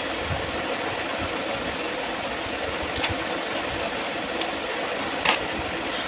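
Steady whooshing background noise, like a fan running in the room. A few light clicks sound over it as jewellery is handled, the clearest about five seconds in.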